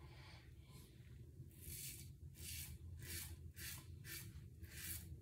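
Safety razor scraping through lathered stubble on the face and neck in short strokes, about two a second, faint at first and louder from about a second and a half in.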